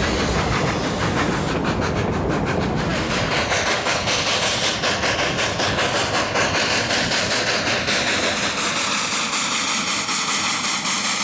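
Narrow-gauge steam train running, with a fast, even beat. Steady high tones come in over the last few seconds.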